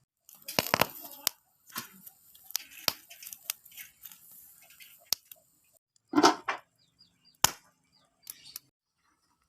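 Biting and chewing grilled corn on the cob: a run of sharp, crisp crunches and clicks at irregular spacing, with one louder, fuller sound about six seconds in.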